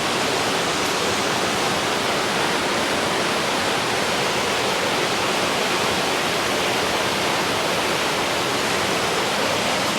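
Running water of a stream, rushing steadily as a loud, even hiss.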